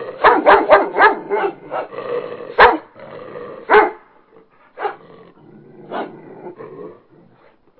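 Dog barking in short, sharp barks: a quick run of about seven in the first two seconds, then single barks roughly a second apart that grow fainter toward the end.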